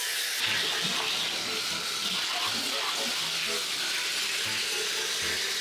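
Self-service car wash pressure wand spraying snow foam onto a car: a steady hiss of spray.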